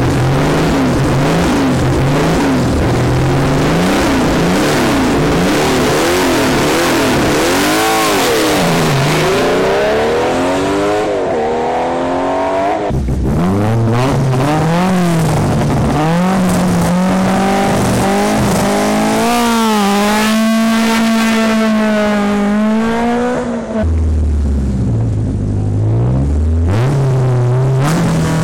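Rally car engines revving at a stage start line, one car after another. Each driver blips the throttle again and again, so the pitch climbs and falls. In the middle, one car holds its engine at high revs for a few seconds.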